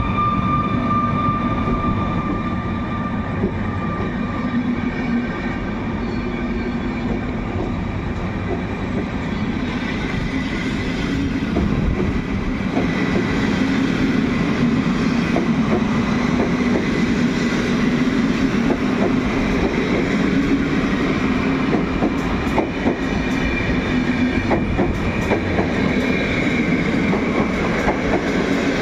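PKP Intercity passenger coaches rolling steadily past behind a Newag Griffin electric locomotive, a continuous rail rumble that grows louder about halfway through. Wheels click over rail joints in the last few seconds.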